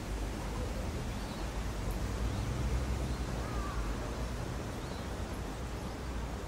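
Outdoor ambience: a steady low rumble and hiss with a few faint bird chirps.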